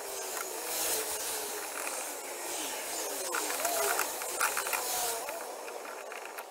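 A rubber radiator hose squeaking and scuffing in wavering bursts as it is twisted and pushed onto the thermostat housing neck of a slant-six engine, with a few light clicks of hand and clamp, over a steady hiss of rain.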